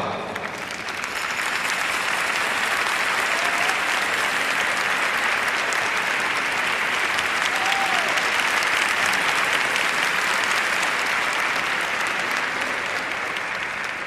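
Arena crowd applauding steadily. The applause builds about a second in and tapers off near the end.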